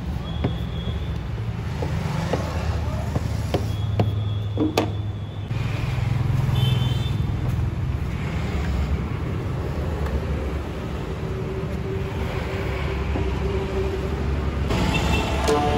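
Steady low rumble of a motor vehicle's engine running nearby, with a few light clicks in the first few seconds.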